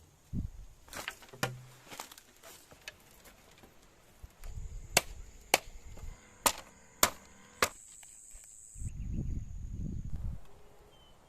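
Five sharp chopping knocks about half a second apart, a blade striking wood or bamboo, after a few fainter taps; a steady high thin drone sounds under them.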